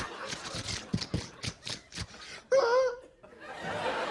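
Studio audience laughing while a performer makes vocal sound effects into a microphone: a run of quick mouth clicks, then a loud, wavering, pitched vocal cry lasting about half a second, about two and a half seconds in.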